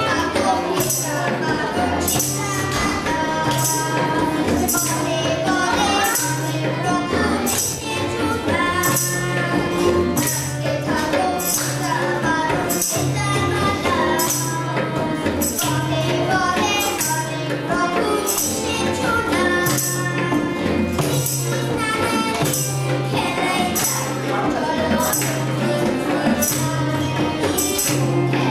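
A song played on tambourine, tabla, a barrel drum, harmonium and acoustic guitar, with singing. The tambourine jingles about twice a second over a steady repeating drum pattern.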